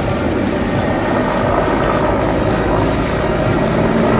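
Mil Mi-24/35 Hind attack helicopter in display flight: its main rotor and twin turboshaft engines make a steady drone.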